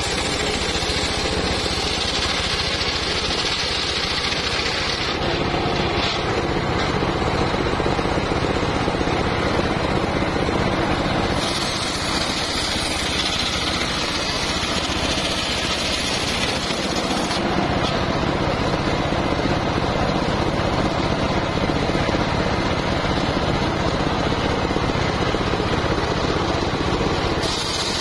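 Homemade circular sawmill running steadily, its large spinning blade ripping a big sengon (albizia) log lengthwise. A higher whine from the blade in the wood comes and goes with the cuts: for the first few seconds, for about six seconds in the middle, and again at the end.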